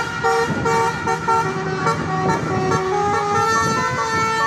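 Tour bus's telolet horn playing a quick tune of multi-tone notes that change every fraction of a second, with the bus engine running underneath.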